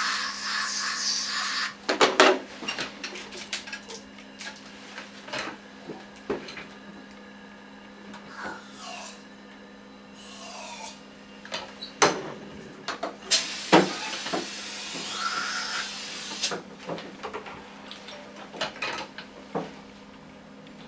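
Compressed air from a dental air syringe hissing onto the teeth in two bursts, a loud one of about two seconds at the start and another from about 13 to 16 seconds in, drying the tooth before the digital scan. Scattered clicks and knocks of instruments and keys, over a steady low equipment hum.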